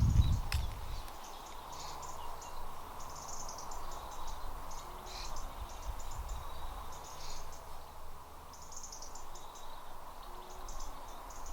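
Small birds chirping outdoors in short high twittering bursts that come and go, over a steady low background hum. A low thump sounds in the first second.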